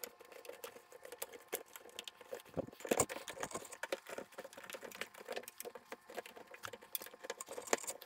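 Rubber door gasket of a front-load washer being pressed by hand over the lip of the cabinet opening: a faint, irregular run of small clicks, taps and rubbing as it is worked around into place.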